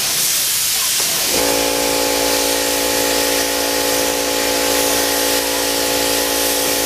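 Compressed-air spray gun spraying clear coat onto a motorcycle fairing, a loud steady hiss of air and atomised paint. About a second and a half in, a steady mechanical hum with a low rumble joins it.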